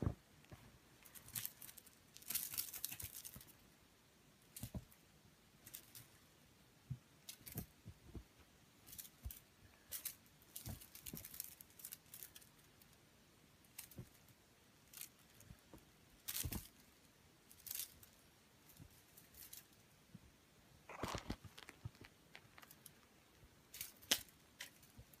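Kittens playing on a bedspread, chasing a feather teaser wand: faint, scattered rustling and scratching of fabric with a few soft knocks as they pounce and scramble.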